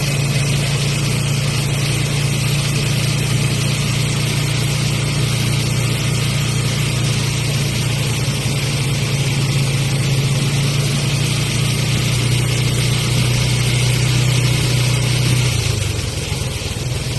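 Vehicle engine running with a steady low drone under an even hiss of heavy rain; the drone shifts and dips slightly near the end.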